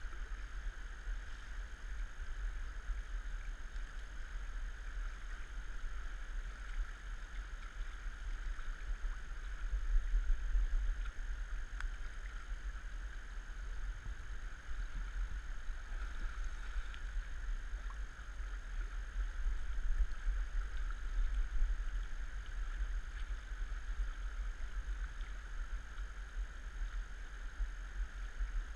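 Steady rush of a flowing river, under a low, uneven rumble on the GoPro's microphone that swells twice, about ten seconds in and again near twenty seconds.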